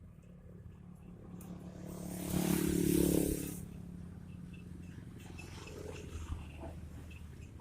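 A motor vehicle passing close by: its engine noise swells to a peak about three seconds in, then fades away over a steady low hum.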